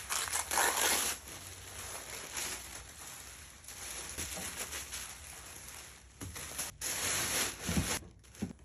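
Gift tissue paper rustling and crinkling as sheets are pulled from their plastic pack, shaken open and crumpled into a plastic basket, with a few soft knocks near the end.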